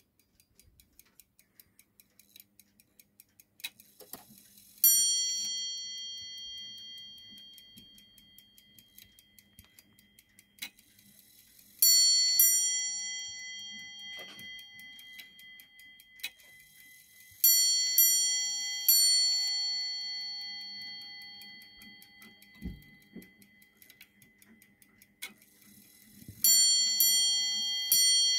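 Ship's clock movement ticking quickly while its hands are turned forward, setting off its ship's-bell striking. Each group of ringing strikes holds one more stroke than the last: one, then a pair, then a pair and a single, then a further group. Every stroke rings on and fades slowly.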